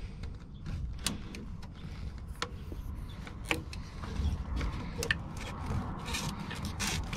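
Sharp plastic clicks and rubbing and scraping as a plastic EVAP charcoal canister is handled and needle-nose pliers work at the clip of a hose fitting on it.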